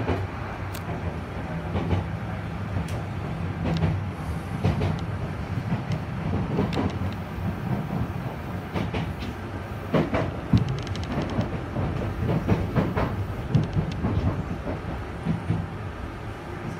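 Enshu Railway electric commuter train running, heard from the front of the cab: a steady low hum from the running gear, with irregular clicks and knocks from the wheels on the track that come thicker from about ten seconds in.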